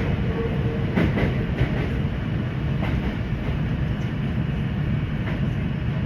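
Kintetsu 8A series electric train running, heard from inside the car: a steady rumble of wheels on rail with a few sharp clicks, about one, three and five seconds in.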